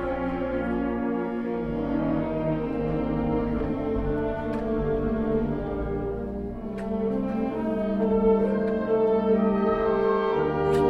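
Concert wind band playing slow, sustained chords, with the brass to the fore.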